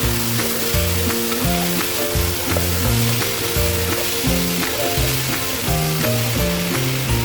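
Chicken, mushrooms and onion sizzling as they are stir-fried, with light clicks of the stirring, over background music with a moving bass line.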